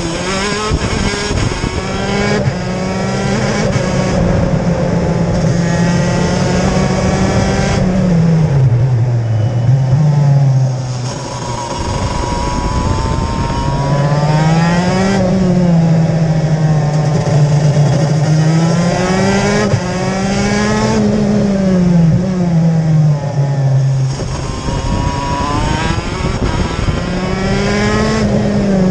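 TM K9C 125cc two-stroke shifter kart engine at racing speed, heard from the driver's seat. Its pitch climbs and falls again and again as it is run through the six-speed sequential gearbox. It dips low and uneven about eight to eleven seconds in.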